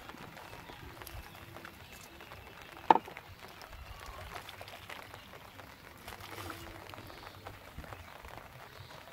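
Water dripping and trickling from a raised bamboo-framed lift net onto the water surface, a faint steady pattering, with one sharp click about three seconds in.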